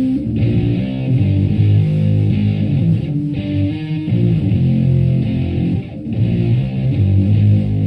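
Stratocaster electric guitar through a Univox Super-Fuzz pedal into a Marshall Plexi head and 4x12 cabinet, playing fuzzed chords and riffs, with short breaks between phrases about three and six seconds in.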